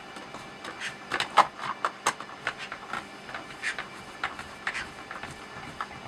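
Irregular small clicks and knocks of a plastic speaker enclosure and its parts being handled during reassembly, several light taps with one or two sharper clacks.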